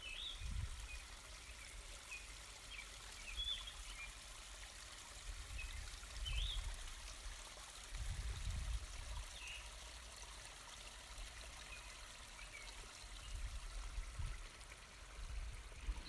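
Faint scratching and dabbing of a watercolor brush on rough paper over a steady low hiss, with a few soft low bumps.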